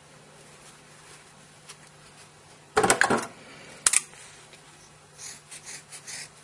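Tabletop handling noises: a short cluster of rustles and clicks about three seconds in, a single sharp click about a second later, then soft rustling near the end.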